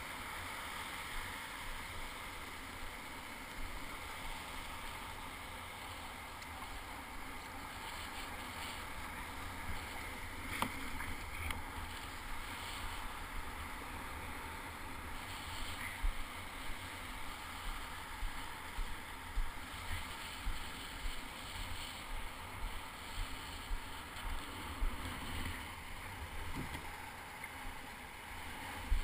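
Water washing around a sit-on-top kayak in shallow surf, with irregular splashes from paddle strokes that come more often in the second half. A low wind rumble sits on the microphone throughout.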